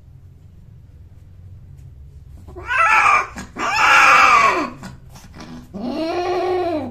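Persian cats mating: a cat yowls three times in long, drawn-out calls that rise and fall in pitch, the last one lower. This is the caterwauling that goes with cat mating.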